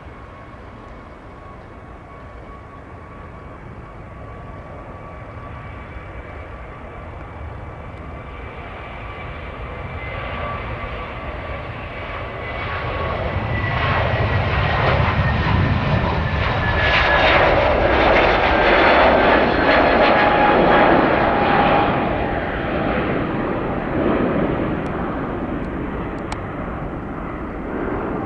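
Airbus A321neo's Pratt & Whitney geared turbofan engines at takeoff thrust: a steady whine and roar that grows louder through the takeoff roll and liftoff, peaks about two-thirds of the way through as the jet passes, the whine sliding down in pitch, then fades to a rumble as it climbs away.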